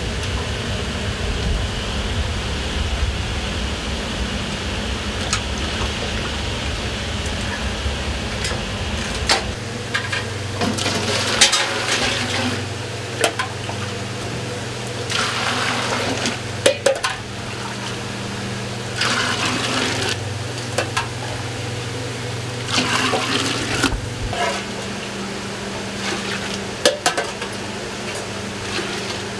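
A long-handled brass ladle scooping and pouring hot liquid in a large steaming stainless cooking pot, with about five splashing bouts a few seconds apart. Under it there is a steady low rumble that gives way to a steady hum about nine seconds in.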